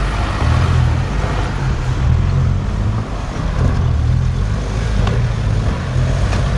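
Off-road vehicle's engine running over a rough track, a steady low rumble that rises and falls without a break.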